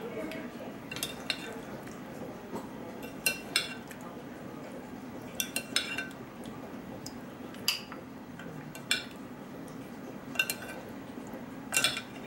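A metal spoon clinking against ceramic bowls while meat and soup are ladled from a serving bowl, in short scattered clinks every second or two, some in quick pairs. A low steady hum lies underneath.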